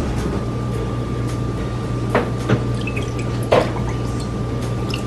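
Electric milk frother running with almond milk inside: a steady hum with a thin whine that starts just after the beginning, and a few light clicks.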